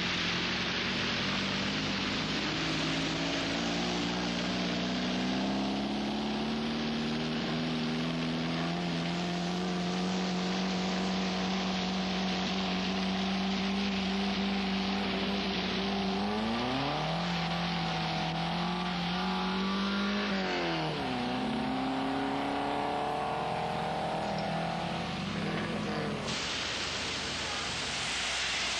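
A vehicle engine running, its pitch slowly climbing, then sweeping sharply down and back up twice near the middle. It cuts off abruptly a little before the end. A steady hiss runs underneath.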